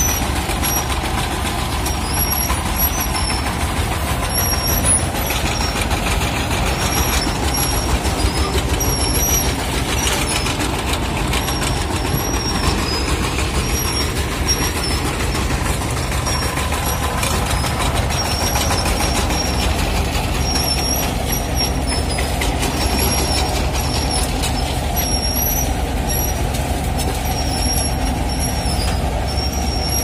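Single-cylinder diesel engine of a two-wheel power tiller running steadily, with a low, rapid, even pulsing.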